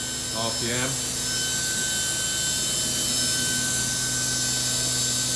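DECKEL MAHO DMU 60T machining center spindle running at a steady speed on a test run, a steady whine made of several fixed tones over a mechanical hiss.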